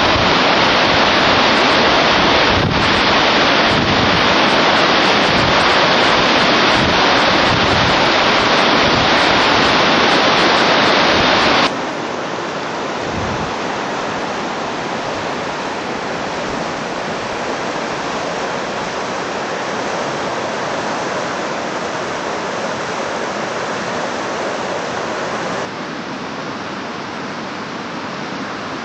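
Floodwater rushing in a creek in flash flood, a steady loud roar of turbulent water with wind buffeting the microphone. It is loudest for the first twelve seconds, then drops to a lower, steady rush, and steps down again near the end.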